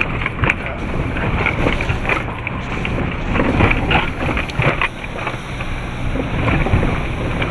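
Land Rover Defender driving slowly over a wet, rutted lane. Its engine runs steadily under wind buffeting on the microphone, with irregular knocks and splashes from the wheels and body over the ruts and puddles.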